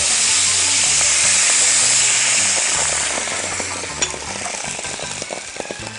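White wine poured into a hot pan around a browned turkey breast, sizzling and hissing hard, then dying down over several seconds as the liquid heats.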